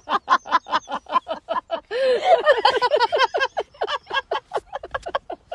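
Small dogs play-fighting, giving a fast run of short, pitched yaps, about five a second.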